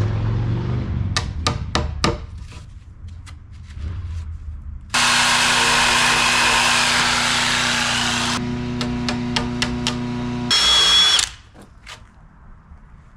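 A run of sharp knocks, then a power saw cutting wood: a loud, steady cutting noise over the motor's hum starts abruptly about five seconds in, gives way to quieter running, and ends near the end in a short burst with a high whine.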